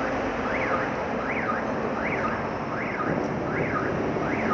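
Electronic siren wailing up and down in pitch, about one rise and fall every three-quarters of a second, over the steady noise of street traffic.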